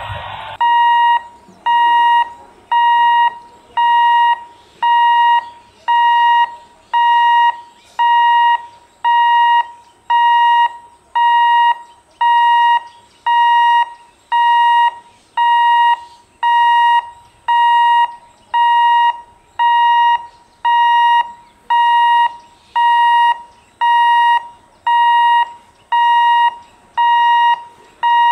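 Electronic warning buzzer at a railway level crossing, beeping steadily a little faster than once a second, each beep one high tone.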